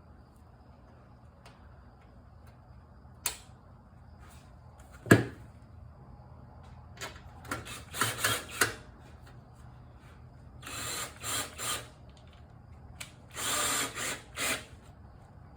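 A cordless drill/driver running in short bursts, driving in the screw that holds the dipstick tube on a lawn mower engine until it is snug. A sharp knock about five seconds in, before the three groups of bursts.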